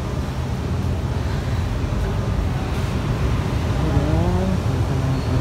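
Steady low rumble of an enclosed underground car park. A brief wavering tone comes in about four seconds in.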